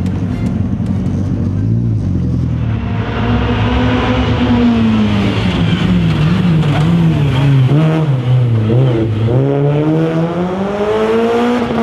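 Renault Clio RS rally car's four-cylinder engine under hard driving. The engine note falls and wavers as the car slows, then climbs steeply about nine seconds in as it accelerates again.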